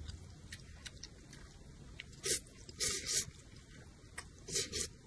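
Wide sauced noodles slurped from a bowl held at the mouth: three loud slurps starting about two seconds in, the middle one the longest, with small chewing clicks between.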